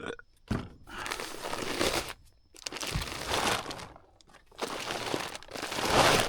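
A bag of deer feed or mineral crinkling as it is handled and folded shut, in three long spells of rustling with short pauses between.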